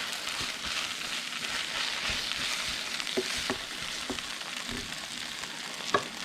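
Hot melted beef suet sizzling in a pot while egg layer crumbles and oats are stirred into it, a steady hiss with a few light knocks.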